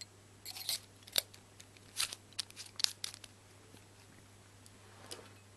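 Small pieces of gear being handled and set down: a run of sharp clicks, taps and rustles over the first three seconds or so, then one faint click near the end.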